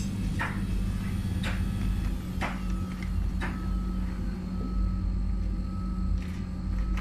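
Beko WMB71643 front-loading washing machine tumbling a wash: a steady motor hum with water and laundry swishing in the drum about once a second, the swishes thinning out after the middle as the drum slows and comes to rest.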